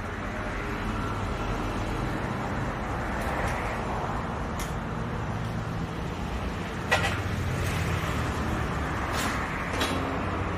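Steady low hum of a running motor in a workshop, with a few sharp metallic clicks of hand tools working on the engine, two of them close together near the end.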